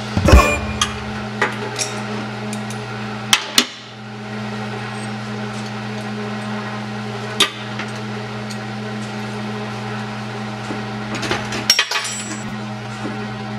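Steady electrical hum with a few sharp knocks of tools on metal, spaced several seconds apart, with a quick run of them near the end.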